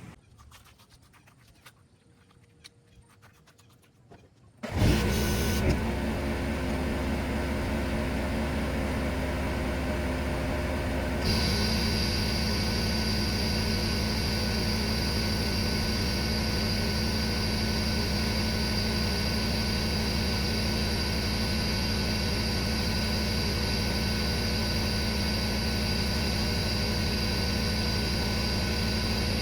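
Hotsy pressure washer's engine comes in suddenly about five seconds in and runs steadily. About eleven seconds in a high hiss of water spraying under pressure joins it and the sound steps up slightly.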